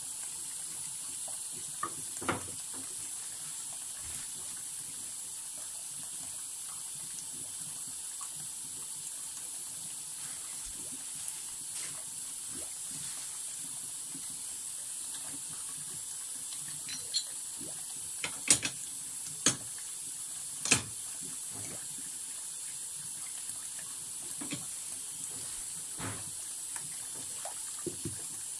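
Water running steadily from a tap into a sink, with a few sharp knocks of hard objects scattered through, the loudest cluster about two-thirds of the way in.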